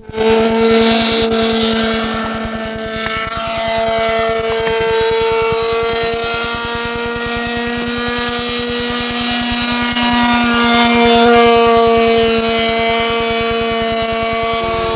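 Great Planes Ultimate 40 RC biplane's model engine running steadily in flight, a high buzzing whine that shifts slightly in pitch and drops in pitch near the end as the throttle comes back.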